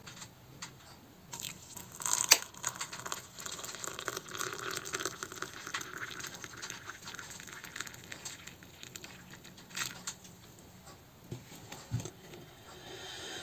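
Quiet rustling and crinkling with scattered small clicks and knocks.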